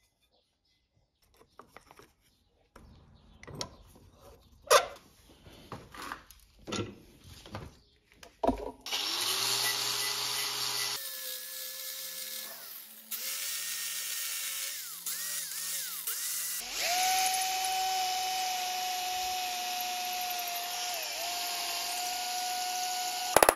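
A few knocks and clicks of tools being handled, then a small electric power tool running steadily at speed, in several stretches that cut off and restart abruptly.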